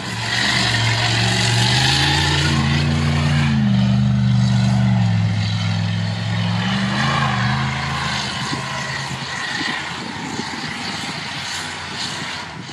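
4x4 off-road vehicle's engine revving hard under load, its pitch climbing and then dropping, with a short rise again before it fades away. It is mixed with a loud rushing noise that is strongest at first, and it starts abruptly.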